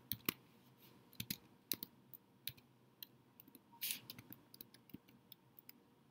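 Faint, irregular keystrokes on a computer keyboard as a few characters are typed, one at a time with gaps between.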